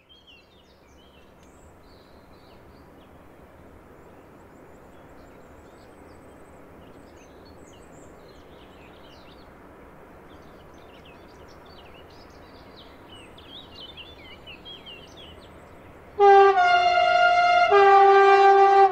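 Faint steady background noise with birds chirping, then about 16 s in an electric locomotive's horn sounds loudly in two long notes, about a second and a half each, back to back.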